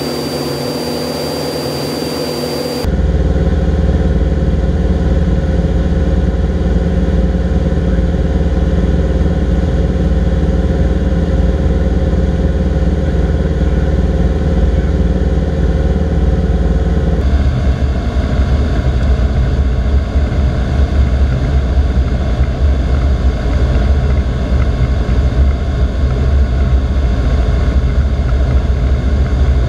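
Cessna 172 piston engine and propeller droning steadily, heard inside the cabin. The drone changes abruptly about three seconds in and again past halfway, where the recording cuts between flights. The first few seconds are thinner, with hiss and a thin high whine.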